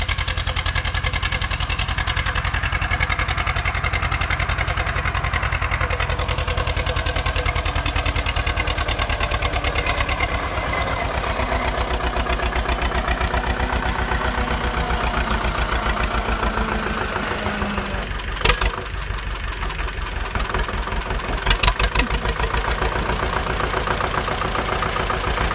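Zetor 25's two-cylinder diesel engine running steadily with an even pulsing beat as the tractor pulls a plough through the field and passes close by. Two short sharp knocks come about three quarters of the way through.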